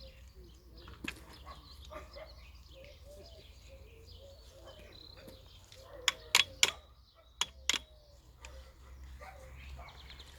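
Five sharp knocks in quick succession a little past the middle, over faint animal calls and a low steady hum.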